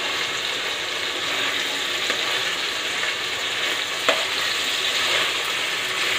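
Chicken breast fillets sizzling steadily in honey garlic sauce in a nonstick wok. A metal spatula tapping the pan twice, about two and four seconds in.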